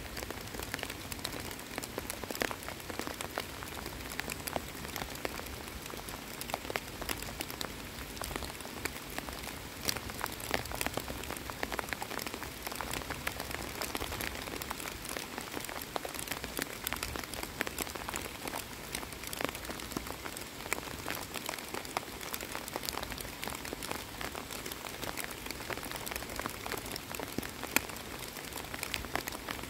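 Steady rain falling on open water, a dense patter of many small drops.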